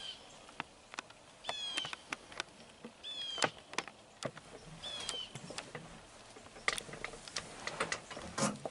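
A bird's short, harsh, slightly falling calls, three of them spaced about a second and a half apart, among scattered light clicks and rustles.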